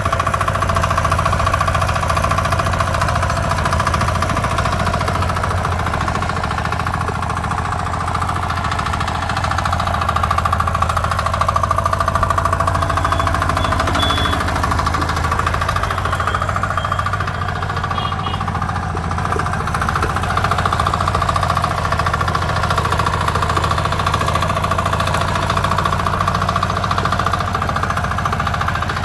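Small single-cylinder engine of a mini tractor / power tiller running steadily at an even speed.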